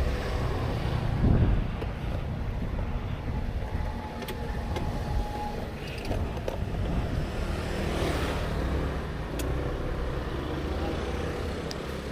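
Steady low rumble of motor vehicles, as of road traffic, with a louder swell about a second in and a rushing pass around eight seconds in.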